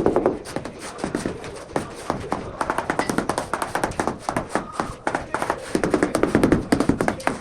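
Rapid, repeated tapping, as of a rubber mallet tapping on a large floor tile to bed it into the adhesive.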